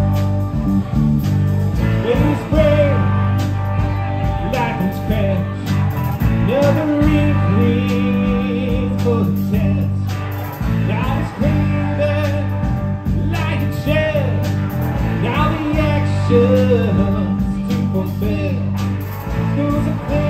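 Live band music: electric guitars, electric bass and a drum kit, with male lead vocals and a second voice singing along.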